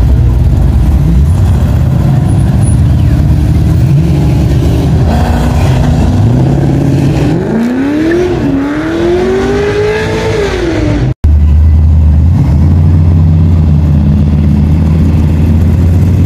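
Classic muscle cars' engines running loud and low as they pull away one after another. About halfway through, one revs up hard, its pitch climbing and then falling away. The sound breaks off abruptly, then another car's deep engine note takes over.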